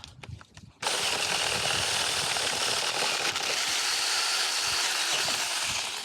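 Huing 6-inch cordless electric chainsaw switching on abruptly about a second in and running steadily at full speed with a high whine, cutting a low tree branch. It stops just before the end. A few light clicks come before it starts.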